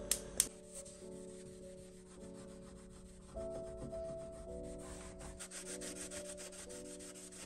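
Gas hob spark igniter clicking twice as a burner lights, then a cloth rubbing in quick back-and-forth strokes on a stainless-steel cooker hood to wipe off grease, under background music.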